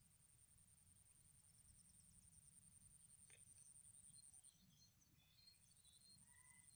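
Near silence: faint outdoor ambience with a steady high-pitched buzz that breaks off for about a second past the middle, a few faint bird chirps and a low rumble.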